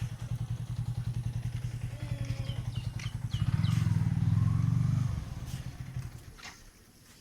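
A small vehicle engine running with a fast, even putter; it swells about three and a half seconds in, then fades away near the end.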